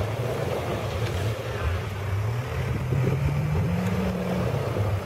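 Jeep engine pulling at low speed as the Jeep crawls through a deep mud trench. It revs higher about three seconds in, then eases back.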